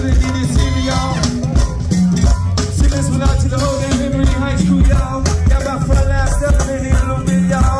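Live go-go band music played through PA speakers: a steady driving beat of drums, percussion and bass, with a singing voice on top.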